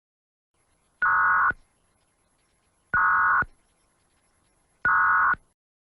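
Three short bursts of buzzing electronic data tone, about two seconds apart: the end-of-message (EOM) code bursts of an Emergency Alert System broadcast, marking the end of the alert.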